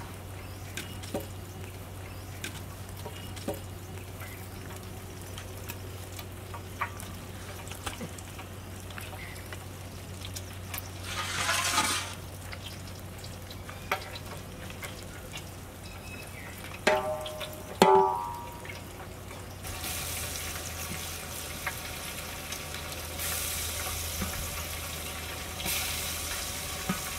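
Tuna steak pieces frying in oil, sizzling faintly with scattered small crackles, over a steady low hum. There are a couple of louder short sounds about halfway through, and the sizzle thickens near the end.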